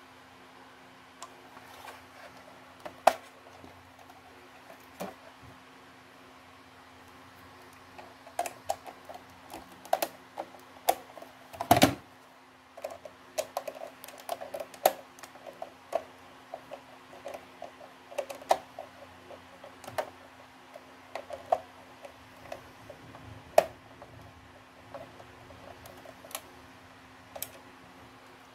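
Plastic housing of a Huawei B315s-936 LTE modem being pried open by hand: scattered clicks, taps and snaps of the casing and its clips, thickest in the middle stretch, with one loud knock about twelve seconds in.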